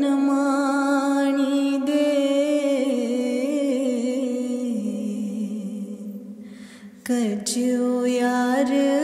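A solo voice sings long, drawn-out notes with slight bends in pitch and no accompaniment, as in a devotional chant. The held phrase sinks lower and fades about six seconds in, and a new phrase starts about seven seconds in.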